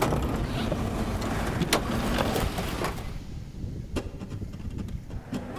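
Low, steady running noise of a van heard from inside its cabin, with three sharp clicks about a second apart in the middle.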